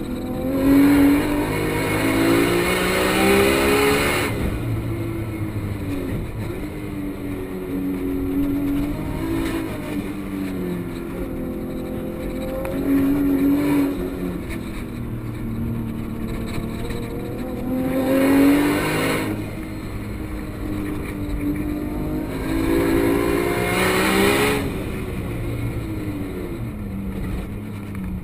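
Turbocharged Nissan Skyline GT-R R34 race car engine heard from inside the cabin, running hard on track: its pitch climbs several times as it runs up through the revs and drops away as the driver backs off. Loud bursts of rushing noise come at the highest revs, near the start and twice more in the second half.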